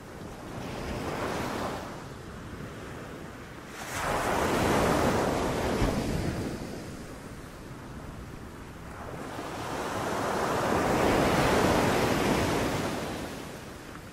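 Sea waves breaking and washing up a beach in three surges: a small one at the start, a louder one that comes in suddenly about four seconds in, and a long one that builds from about nine seconds and fades near the end.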